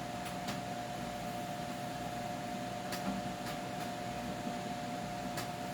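Steady machine hum with a constant mid-pitched whine, broken by a few faint light clicks: a pair near the start, another pair about three seconds in, and one near the end.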